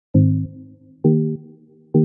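Background music: struck chords, three of them about a second apart, each fading before the next.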